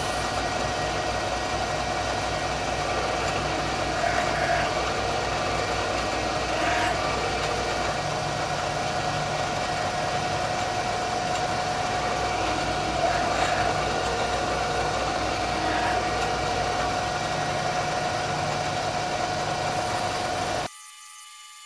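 Bridgeport CNC milling machine running, its spindle turning a cutter into a magnesium carburettor adapter plate: a steady whine over a low hum, with a few brief louder swells. It cuts off suddenly near the end.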